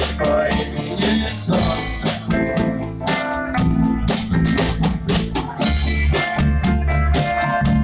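A band playing a cover song, with a steady drum-kit beat under the other instruments.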